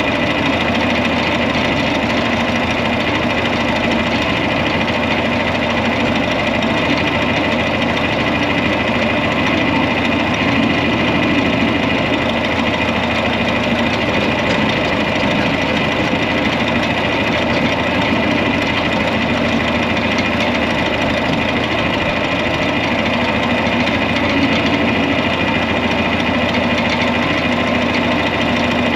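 An engine running steadily at a constant speed, driving the machinery that moves grain out of a storage bin.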